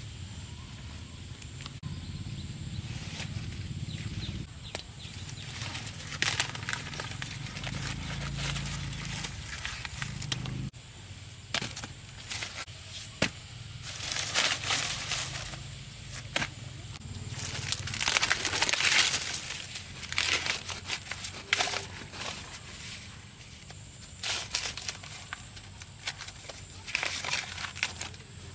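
Dry plant material being handled, rustling and crackling in irregular bursts.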